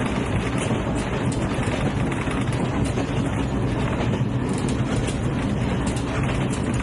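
Train running along the track: a steady rumble with a low hum underneath and faint scattered clicks.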